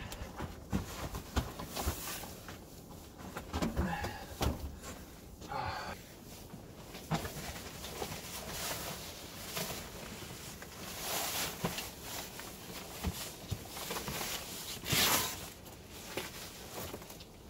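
Clothing rustling and shuffling movement close to the microphone, with scattered knocks and clicks from gear being handled.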